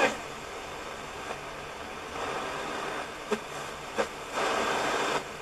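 Hiss and static from a single-tube reflex medium-wave radio, played through a powered speaker while its tuning knob is turned between stations. The noise swells a little about two seconds in and again near the end, with two sharp crackles in between.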